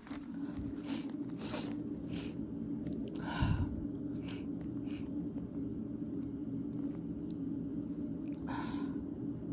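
A person sniffling and breathing in short puffs between sneezes, with one stifled, held-back sneeze about three and a half seconds in and a voiced inhale near the end.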